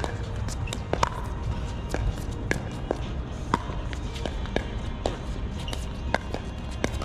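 Pickleball paddles striking a plastic pickleball: more than a dozen sharp pops at irregular spacing, some loud and some fainter, over a steady low rumble.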